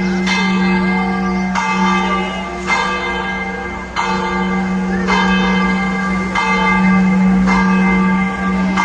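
Church bell ringing, struck about once a second, each stroke a cluster of ringing tones over a steady deep hum that carries between strokes.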